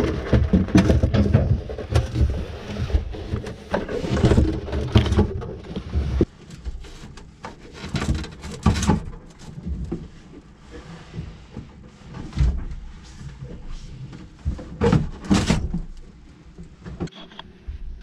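Irregular knocks, bumps and rubbing from handling and fitting a refrigeration unit in a cramped boat icebox and cockpit locker. The noise is busiest and loudest for the first six seconds, then thins to scattered clicks and taps.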